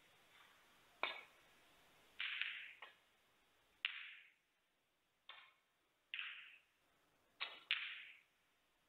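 Snooker cue and balls striking: a series of sharp clicks, about eight in all, several with a short ringing tail.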